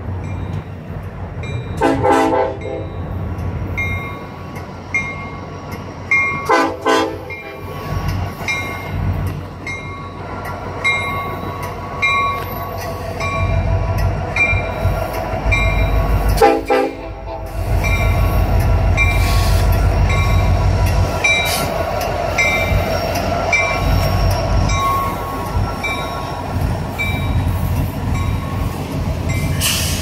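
Union Pacific freight train's diesel locomotives sounding the horn in about three short blasts, with a bell ringing steadily throughout. From about 18 s the locomotives pass close by with a loud, deep engine rumble.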